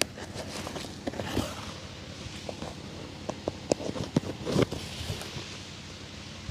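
Shoe shining by hand: irregular taps and knocks, with two short brushing swishes.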